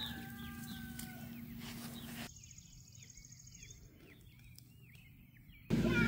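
Chickens calling: a drawn-out call about a second long near the start, then a run of short chirping calls over a steady high buzz. A loud steady low hum cuts in near the end.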